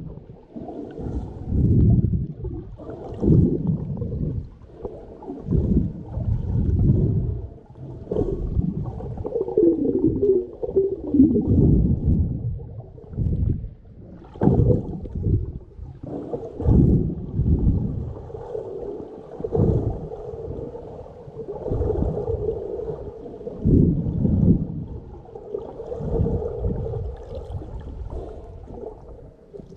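Muffled underwater water noise picked up by a submerged camera: low rumbling, gurgling surges of water moving around it, swelling every couple of seconds.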